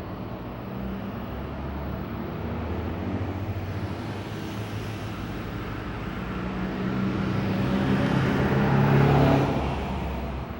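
A motor running steadily, growing louder to a peak about nine seconds in and then easing off.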